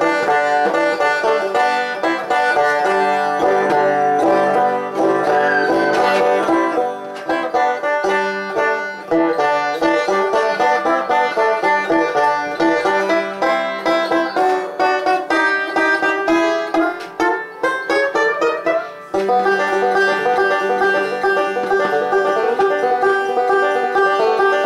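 Epiphone banjo played solo, a continuous run of quick plucked notes, with a few notes sliding upward in pitch, one of them near the end.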